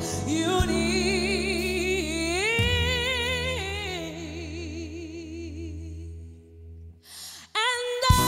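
A woman singing long held notes with wide vibrato over a steady low accompaniment. The sound thins almost away about six and a half seconds in, then voice and band come back in loudly near the end.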